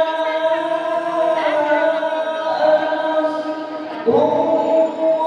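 Male qari reciting the Quran in melodic tilawah style through a microphone and loudspeakers. He holds one long, slightly wavering note, then starts a new phrase with a rising attack about four seconds in.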